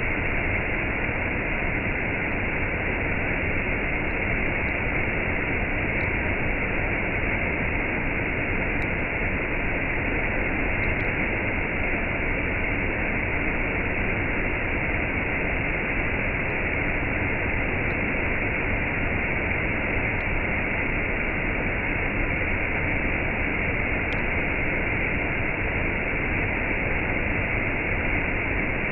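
Waterfall with cascades: a steady, unbroken rush of falling water with no changes.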